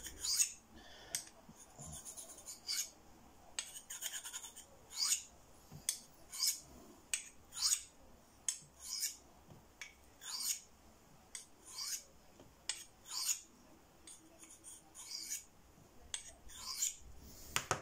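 A stainless knife blade swiped along the grey ceramic side of a Fallkniven CC4 pocket sharpening stone, making short, scraping strokes at about three every two seconds. The blade is being touched up near its base, where the edge still felt sticky.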